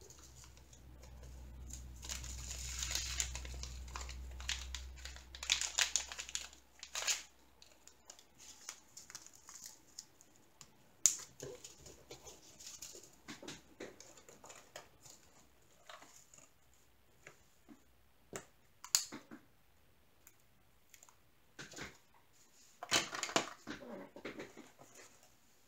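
Small plastic zip bags of diamond painting drills rustling and crinkling as they are handled, with scattered light clicks and taps of bags and tools on the table.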